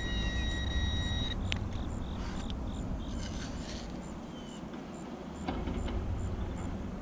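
Hand digger scraping and chopping into clay soil to dig out a detected target, with a steady electronic metal-detector tone sounding for about the first second and a low rumble underneath.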